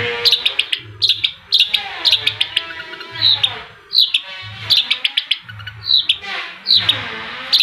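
Long-tailed shrike (cendet) singing loudly and steadily in quick repeated phrases. Each phrase is a cluster of sharp chattering notes, with sweeping calls that rise and fall between them.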